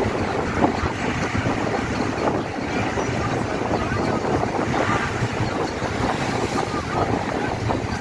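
Wind rushing over the microphone with road noise from a moving vehicle: a steady, rough rushing sound that does not let up.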